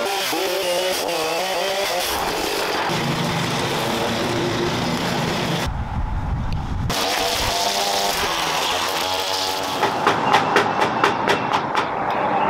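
Steady mechanical work noise with some indistinct pitched sound, then near the end a quick run of about ten knocks on a front door, roughly four a second.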